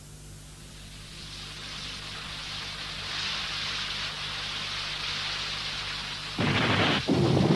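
Rain sound effect fading in and growing heavier, then a sudden loud crash of thunder about six and a half seconds in, with heavy rain continuing under it.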